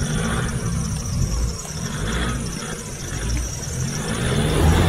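Off-road vehicle engines running during a mud recovery, a low rumble that swells and fades several times and grows loudest near the end, with some squeal mixed in.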